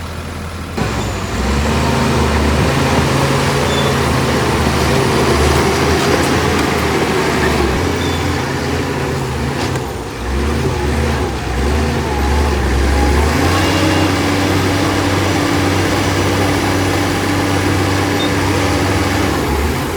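Diesel engine of heavy earthmoving machinery running. It gets louder about a second in, dips briefly around the middle and settles soon after at a new steady pitch.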